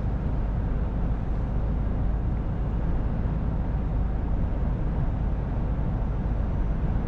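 Steady low drone inside the cab of a Mercedes-Benz Actros L 1848 truck cruising at about 80 km/h. Its 12.8-litre inline-six diesel runs evenly, blended with tyre and wind noise.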